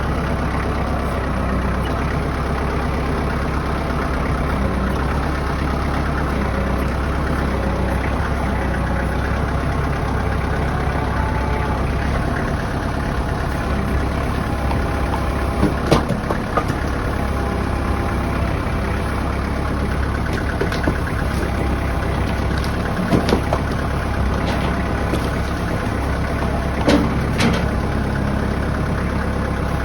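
A vehicle engine running steadily, with a few sharp clicks or knocks now and then.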